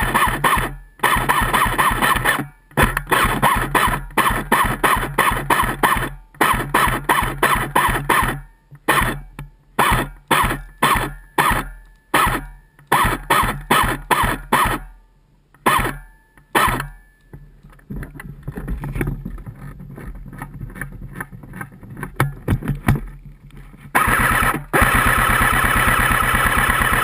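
Colt M4 CQB airsoft electric rifle firing full-auto bursts, its gearbox cycling in a rapid buzzing rattle. The long bursts give way to many short bursts, fainter after about halfway, and one long burst near the end.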